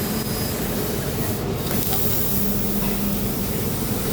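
CNC cutting machine running with a steady hiss and a low hum.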